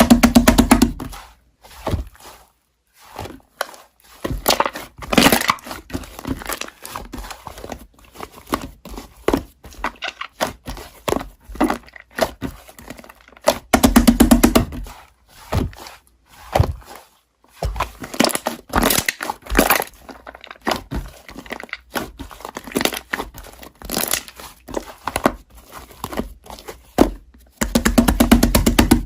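Slime being squished and pressed by hand: a dense, irregular run of small crackles, pops and clicks, with heavier squelches at the start, about halfway through and near the end.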